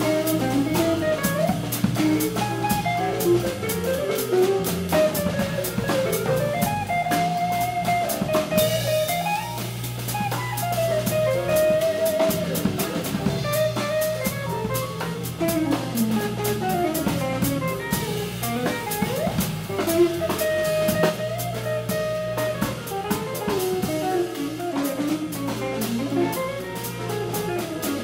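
Live jazz-fusion band playing: a winding electric guitar lead line over a steady electric bass, drums with busy cymbals, and piano.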